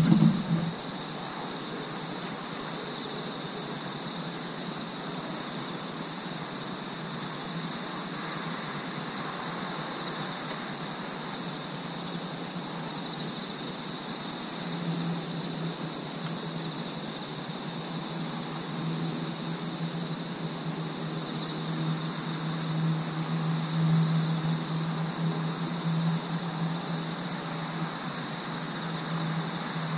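Night insect chorus, a steady trilling at several high pitches. From about halfway a low steady hum joins in, loudest about three-quarters of the way through.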